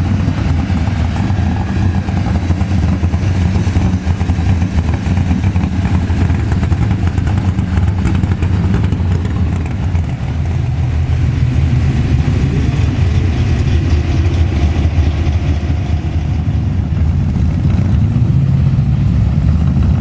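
Vehicle engine running with a deep, steady rumble that grows a little louder near the end.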